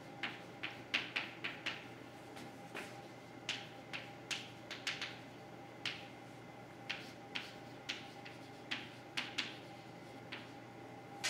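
Chalk writing on a blackboard: a run of short, sharp, irregular taps and clicks, about two a second, as strokes are made.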